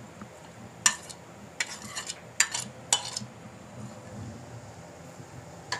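Metal spoon scraping and clinking against a plate and a plastic chopper bowl as raw chicken mince is pushed off into the chopper: several short scrapes in the first three seconds, one more near the end.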